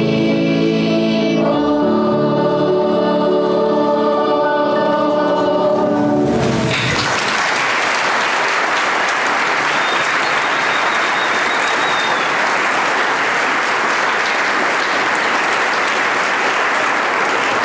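Children's choir singing long held notes with piano accompaniment, ending the song about six and a half seconds in. Audience applause follows, steady for the rest.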